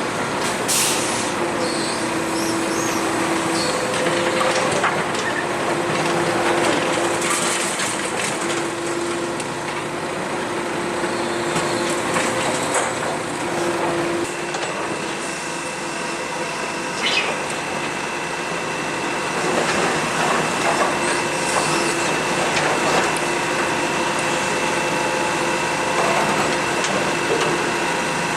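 Kobelco SK125W wheeled hydraulic excavator working: its engine and hydraulics run steadily, with scattered clunks and scrapes of broken asphalt. A high steady whine joins about halfway through.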